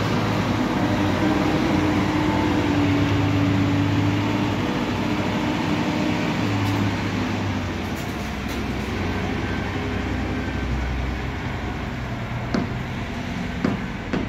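Diesel engine of a Hidromek backhoe loader running under load as it pushes soil with its front bucket, a little quieter in the second half. A few sharp knocks near the end.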